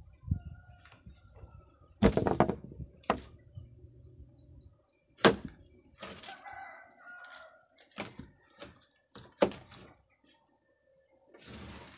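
Large knife chopping through a ripe jackfruit, the blade knocking on the wooden table beneath: about six sharp, irregular knocks. A rooster crows once, midway.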